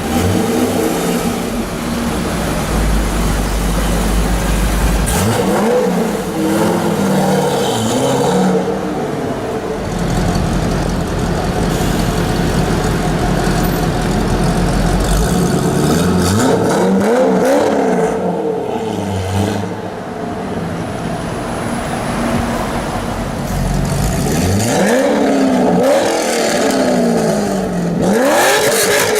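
Loud drag-modified Chevrolet Corvette V8 engine revved in several quick blips in three bursts, settling back to a steady idle in between.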